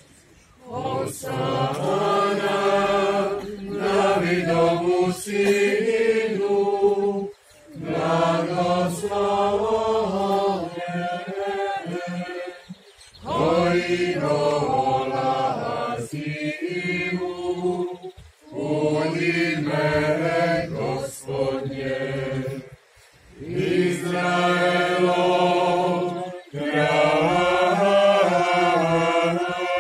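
Voices singing a liturgical church chant in phrases of a few seconds each, with short breaks between phrases.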